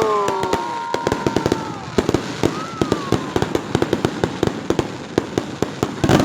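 Fireworks going off: a rapid, irregular string of sharp crackling pops, with a louder bang just before the end.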